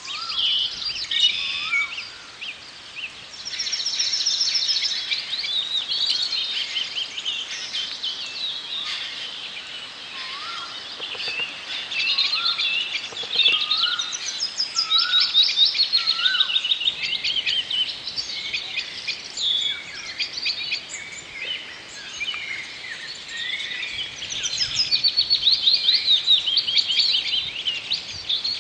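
Several wild birds calling and singing at once: fast, overlapping trills and chirps, and a short rising whistle repeated about once a second in two runs, one at the start and one in the middle.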